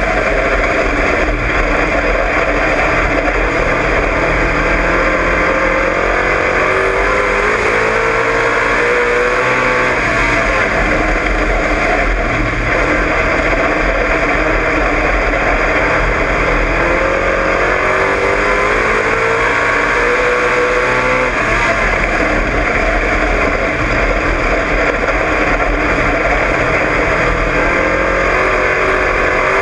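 Dirt-track race car's engine heard from inside the cockpit, running hard through laps. Its pitch climbs in a long rise on each straight and drops back into the turns, about every ten seconds.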